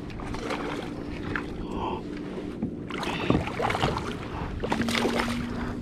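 Water sloshing and knocking against a fishing kayak's hull, with scattered knocks and rustles, two of them louder about three and five seconds in, over a faint steady hum.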